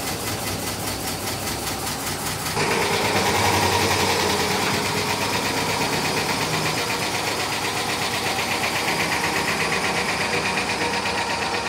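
A motor running steadily with a fast, even pulse, growing louder about two and a half seconds in.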